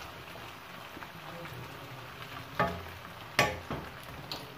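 Wooden spatula stirring macaroni in a metal wok over a low, steady sizzle. The pan is still hot just after the gas flame is turned off. Three sharp knocks of the spatula on the pan come in the second half, the loudest about three and a half seconds in.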